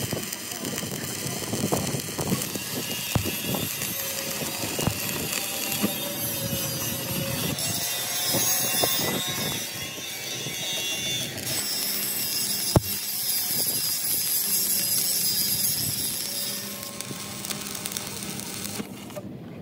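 Metalworking noise: irregular knocks and clanks of tools on metal parts over a steady background noise, with one sharp strike about two-thirds of the way through.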